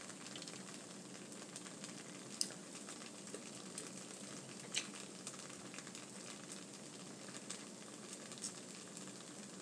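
Faint steady hiss and low hum, with a few sharp clicks scattered through it.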